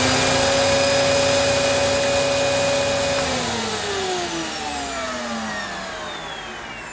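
Electrolux Cyclonic Lite bagless upright vacuum cleaner motor running steadily with its hose sealed on a suction gauge, pulling about 80 on it. About three seconds in, it is switched off and winds down with a falling whine.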